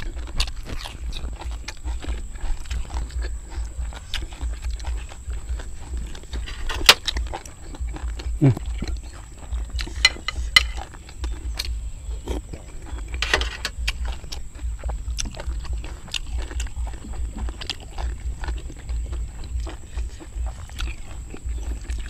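Close-up eating sounds: chewing, lip-smacking and small crunches as two people eat papaya salad, raw vegetables and grilled meat by hand, with many small mouth clicks and a few louder snaps.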